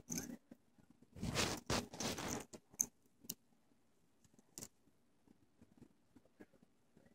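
Metal bangle bracelets on a wrist being handled by a baby's fingers: a second or so of rustling and scraping, then a few light clicks.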